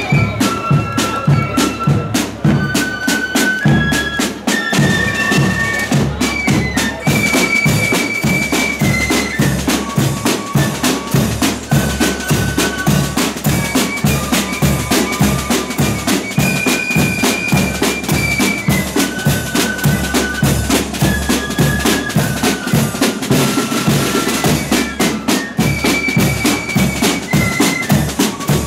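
Marching flute band playing a tune on the move: flutes carry the melody in held, stepping notes over a steady marching beat of side drums and bass drum.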